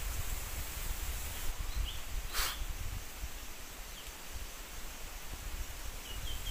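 Outdoor wind rumble and rustling on the microphone, with a short burst of noise about two and a half seconds in. A few faint, short high bird chirps come through now and then.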